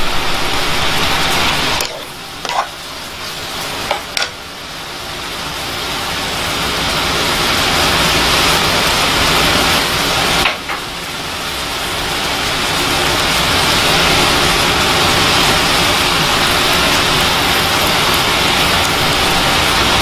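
Fig chutney sizzling in a hot pan: a steady hiss that drops away twice and builds back up gradually each time, with a few light clinks near the first break.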